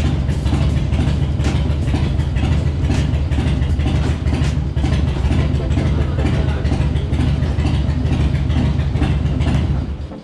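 Cruiser motorcycle engine idling steadily with a loud, even pulse, then switched off near the end, cutting out suddenly.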